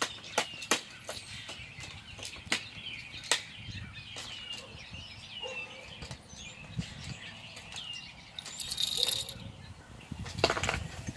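Sharp plastic clicks and taps as a baby handles the toys on a plastic activity center, over birds chirping with short, repeated, downward-sliding calls. Two brief noisy bursts come in the second half.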